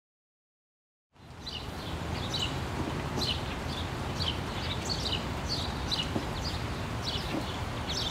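Silence for about a second, then outdoor ambience fades in: birds chirping in short, repeated, falling calls over a steady low rumble.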